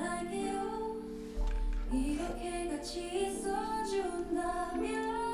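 Background music: a slow melody of held notes stepping from pitch to pitch.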